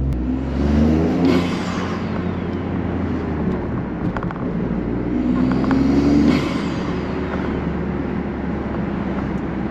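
Toyota GR Corolla's turbocharged three-cylinder engine breathing through a K&N open-element intake, pulling hard twice, each time rising in pitch. Each pull ends in a hiss with a falling whoosh as the throttle lifts. The intake noise is super loud.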